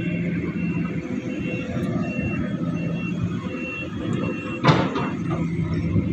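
Steady heavy-machinery noise with a high beep that repeats a little faster than once a second. A single sharp knock comes about two-thirds of the way through.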